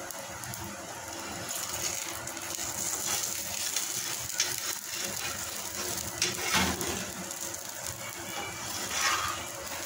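Aloo paratha sizzling in ghee on a hot iron tawa, cooking slowly, with a few short clicks of a steel spatula against the griddle, the loudest about six and a half seconds in.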